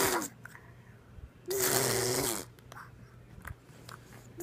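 A person making a noise with the mouth: breathy, buzzing bursts of about a second, each with a voiced pitch that rises, holds and falls. One burst ends just at the start, a full one comes about a second and a half in, and another starts at the end.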